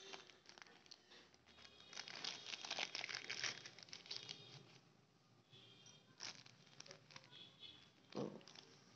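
Thin white paper packet crinkling and rustling in the hand as it is opened, busiest for a few seconds near the start, then a few light clicks as the copper pendant inside is taken out onto the paper.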